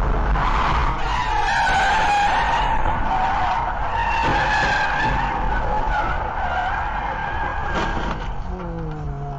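Car tyres screeching in a long skid as a car spins out, over steady road noise. The squeal starts about a second in and dies away near the end.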